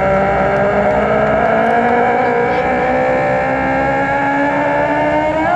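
Four-engine turboprop KC-130 Hercules running loud, a steady many-toned propeller and turbine whine that sags slightly in pitch, rises toward the end and cuts off suddenly.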